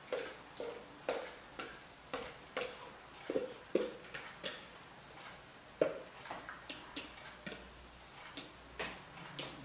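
Cats eating food off the floor: irregular sharp clicks and ticks, roughly two a second, some with a short hollow ring.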